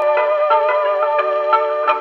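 Instrumental theme music, a melody of held notes changing every half second or so.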